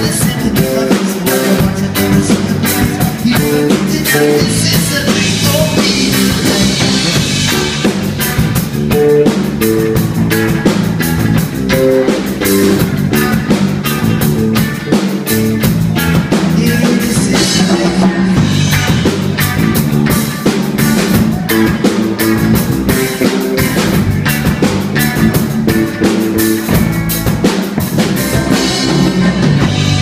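Live band playing with no vocals: electric guitar over a drum kit keeping a steady beat.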